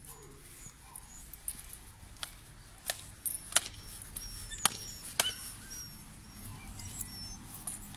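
A handful of sharp clicks or snaps, spaced irregularly through the middle few seconds, over faint short high chirps like small birds and a steady high hiss.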